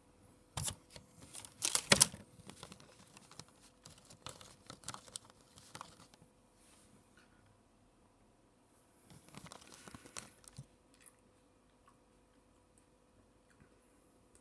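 Scattered rustles and crinkly crackles close to the microphone, loudest about two seconds in, with quiet stretches between. A faint steady hum lies underneath.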